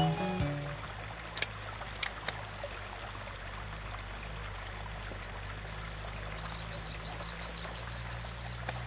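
Steady low engine hum from an idling safari vehicle, with a few sharp clicks in the first few seconds. Near the end a bird calls with a short high chirp repeated about twice a second.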